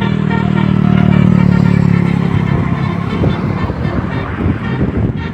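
A large bus close by: a loud, steady low drone for about the first three seconds, giving way to a rougher rumble.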